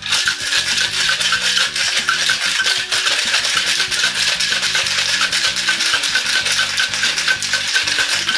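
Ice cubes rattling inside a Boston cocktail shaker, a metal tin capped over a mixing glass, shaken hard and steadily to mix and chill the drink; the rattle stops near the end.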